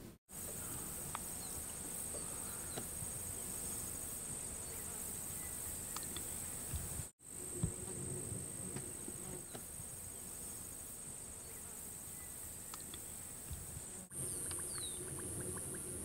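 Steady high-pitched insect drone in open grassland, breaking off briefly twice. Near the end a fast, even train of ticks joins it.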